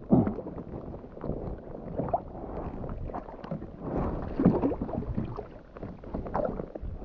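A hooked perch splashing and thrashing at the water's surface beside a kayak as it is reeled in, in bursts, the loudest right at the start and about four and a half seconds in. Wind buffets the microphone underneath.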